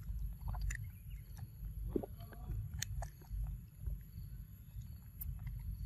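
A macaque biting and chewing soft, ripe orange fruit, with scattered short wet clicks of its eating over a steady low rumble.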